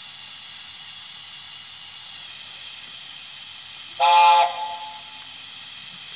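Sound-fitted Dapol model of a Gresley A4 steam locomotive playing a steady steam hiss through its speaker, with one short whistle blast of several notes together about four seconds in.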